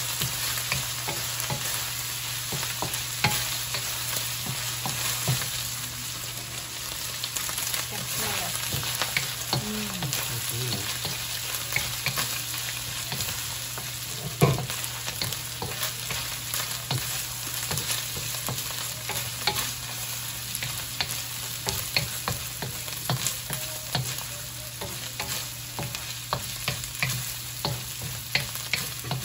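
Shredded beef sizzling in hot oil in a wok, with a wooden spatula stirring and scraping it and knocking against the pan in many short clicks; the meat is being fried until golden brown.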